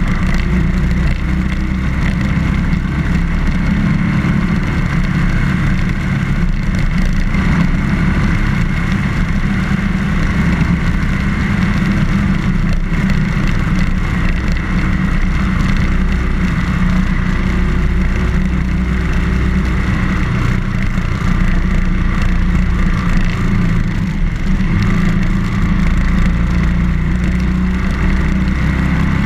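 BMW R1200GS flat-twin boxer engine running at a steady road pace, its pitch shifting a little now and then, with a steady rushing noise over it.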